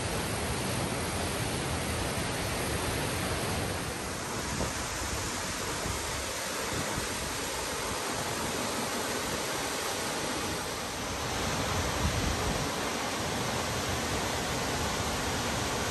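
Tall mountain waterfall, Mystic Falls, cascading over rock in two strands: a steady, even rush of falling water.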